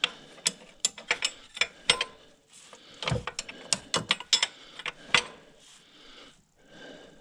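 Ratchet wrench clicking in short irregular runs as the crankshaft of a Mitsubishi 4B11 engine is turned over by hand.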